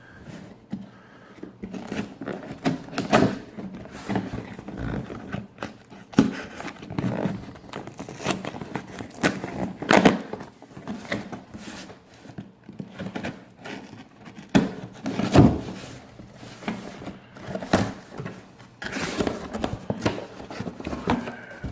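A cardboard package being opened with a Benchmade pocket knife: tape slit, flaps and packing handled, giving irregular scraping, tearing and crinkling with frequent sharp knocks and clicks.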